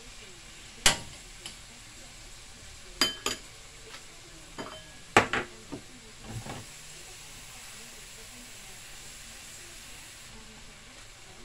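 Vegetables and seasoning sizzling in a stainless steel pan while a long-handled spoon stirs and clinks against the pan several times, the loudest about a second in and about five seconds in; after that only the steady sizzle continues.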